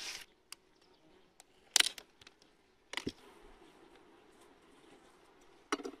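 A few sharp wooden knocks from a wooden beehive box being handled, the loudest about two seconds in, over a faint steady hum of honeybees.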